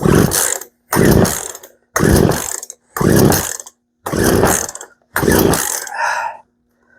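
Poulan P3314 two-stroke chainsaw being pull-started: six quick yanks on the recoil starter cord, about one a second, each a short rasping whirr as the engine turns over without catching.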